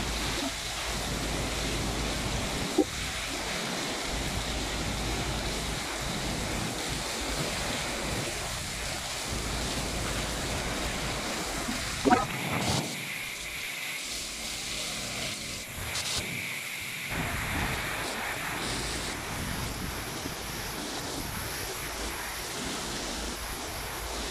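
Typhoon-force wind gusting and heavy rain pouring, a steady rushing noise with the wind buffeting the microphone. Two sharp knocks cut through, the louder about halfway through.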